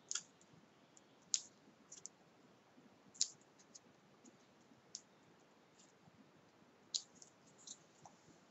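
Faint, scattered clicks and crinkles of fingers peeling the paper backing off small 3D foam adhesive pads, about one or two sharp ticks a second, the sharpest about a second and three seconds in.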